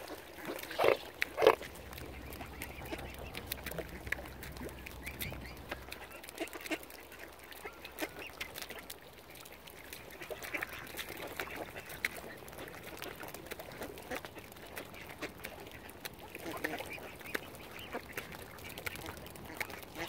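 Ducks quacking: two loud quacks about a second in, then scattered quieter calls through the rest.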